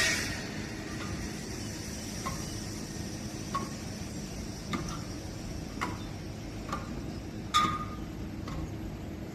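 Hands grabbing horizontal wall-mounted bars one after another as a man climbs a building's wall: a short sharp knock with a brief ring roughly once a second, the loudest near the end, over a steady low background rumble. It opens with a brief louder rush as he jumps up and catches the bars.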